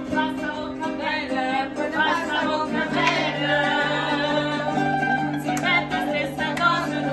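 Live mandolin and acoustic guitar playing a song together, with a woman singing along; the voice comes in about a second in and grows fuller from about three seconds.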